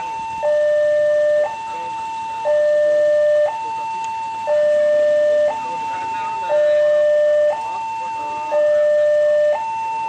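Railway level-crossing warning siren sounding a two-tone hi-lo alarm, switching between a higher and a lower tone once a second. The higher tone is the louder of the two.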